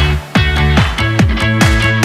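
Background music: an electronic track with a steady thumping beat and sustained notes.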